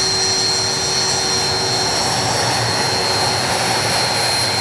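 MiG-29's twin Klimov RD-33 turbofans running at low power during the landing roll with the drag chute out: a steady jet roar with a high, even whine.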